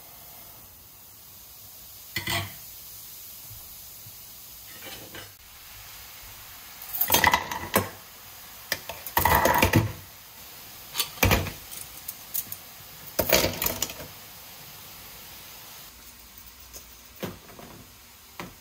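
Stainless steel kitchen utensils clinking and clattering against each other and against metal in several separate bursts, loudest about seven and nine seconds in, over a steady low hiss.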